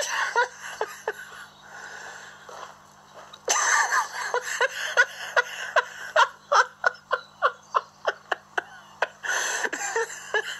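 A person laughing: after a quieter start, a long run of short, evenly spaced laughs, about three a second, sets in about three and a half seconds in and goes on to near the end.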